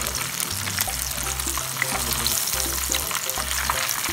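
Breaded shrimp deep-frying in hot oil: a dense, steady sizzle full of small crackling pops.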